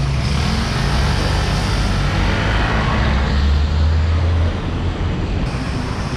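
Motorcycle engine running with a steady low drone, which weakens about four and a half seconds in.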